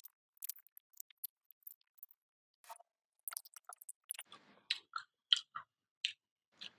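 Close-up chewing and biting of an apple pie: a string of short, irregular clicks from the mouth, more frequent in the second half.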